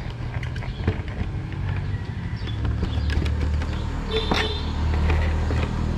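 Hard plastic clicks and light knocks as a motorcycle windscreen is handled and fitted onto the fairing, the sharpest click about four seconds in, over a steady low rumble.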